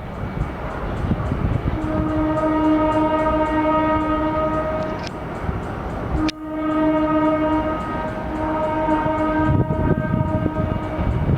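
Horn of a G22 diesel locomotive sounding two long blasts of about three seconds each, over the low rumble of a freight train moving slowly.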